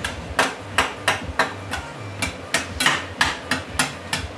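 A spatula tapping and striking against a skillet over and over, about three to four times a second, as it chops browning ground beef into fine crumbles.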